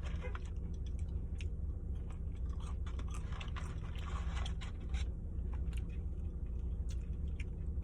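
Close-miked chewing of fried fast food, with small scattered crunches and mouth clicks over a steady low hum.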